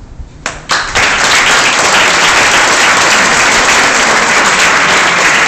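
Audience applauding: a couple of lone claps about half a second in, then full, steady applause from about a second in.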